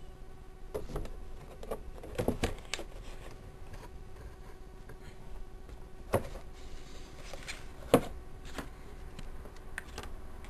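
Hands unpacking a boxed gift set: scattered knocks, taps and rustles of plastic and cardboard packaging, the loudest knock about eight seconds in, over a steady low hum.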